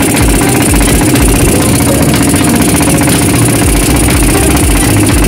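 Fishing boat's engine running steadily under way, with a fast, even knocking beat.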